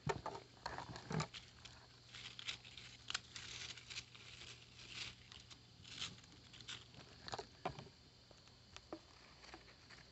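Raccoons eating spilled food on wooden boards: irregular crunching and clicking, some of it in quick clusters.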